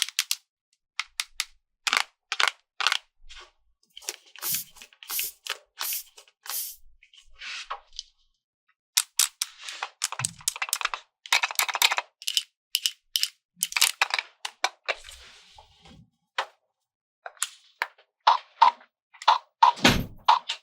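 Plastic toy pieces being handled, with many irregular sharp clicks and taps and a few short stretches of scraping. Near the end there is a series of short beep-like tones.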